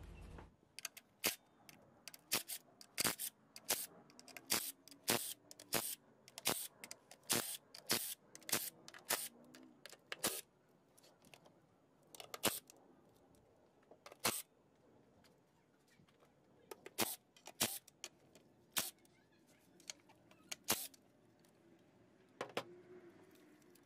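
Hand ratchet clicking as the 10 mm bolts holding the upper intake plenum are loosened: sharp clicks about two a second for the first ten seconds, then scattered single clicks.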